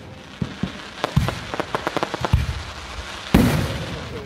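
Aerial firework shells bursting overhead: a few sharp pops, a quick run of crackles between about one and two seconds in, then heavy booms, the loudest about three seconds in, trailing off after.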